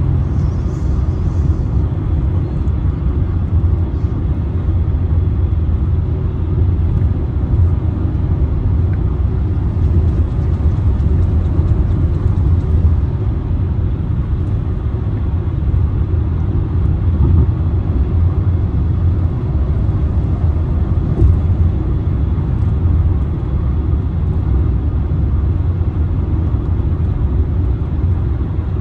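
Steady low rumble of a vehicle travelling on a highway, the road and engine noise heard from inside the cabin.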